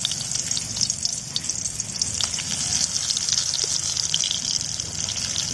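Masala-stuffed small brinjals sizzling in hot oil in an aluminium kadhai, a steady hiss full of small crackles and spits as each brinjal goes into the oil.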